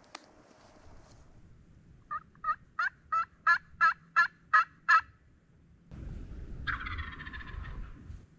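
Wild turkey calling: a run of nine short yelps, about three a second and growing louder. About a second later an Osceola gobbler gives a rattling gobble, over a low rumble.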